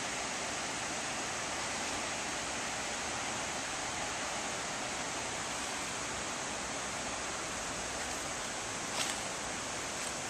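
Steady, even rush of water pouring over a river weir. A faint click comes near the end.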